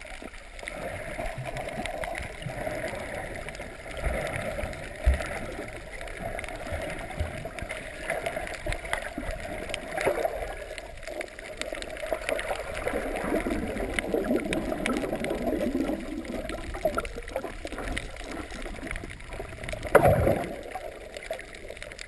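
Muffled underwater water noise heard through a camera's waterproof housing: a steady gurgling wash with scattered faint clicks, swelling now and then. A louder short rush comes about twenty seconds in.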